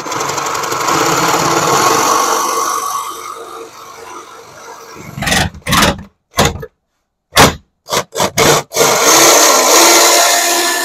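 A Metabo HPT cordless jigsaw with a new Diablo wood blade cuts a pine board. It runs steadily for about four seconds, then stops and restarts in several short bursts, and runs steadily again for the last two seconds.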